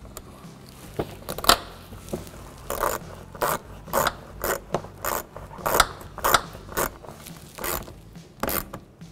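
Small hand ratchet with an 8mm socket snugging screws into a plastic inner fender liner: a series of short rasping ratchet clicks, about two a second.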